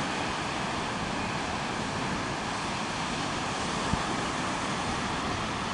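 Steady surf washing onto a sandy ocean beach, mixed with wind buffeting the microphone, and a single brief knock about four seconds in.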